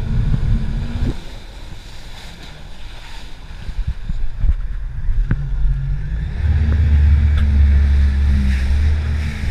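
Jet ski engine running under way, with water rushing past and wind buffeting the microphone. The engine eases off about a second in and comes back up to a steady, louder drone about six seconds in.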